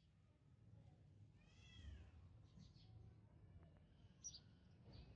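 Near silence with a faint low background hum, broken by one short arched animal call, much like a cat's meow, about two seconds in, and a couple of faint high chirps near the end.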